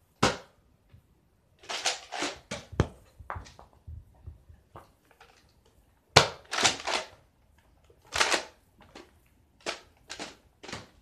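Nerf dart blasters being primed and fired, with foam darts striking: irregular clusters of sharp clacks and thuds separated by quiet gaps of a second or two.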